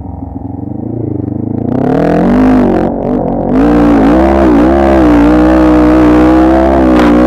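ATV engine revving up under throttle, its pitch climbing about two seconds in, dropping briefly at about three seconds, then holding steady at high revs with small rises and falls.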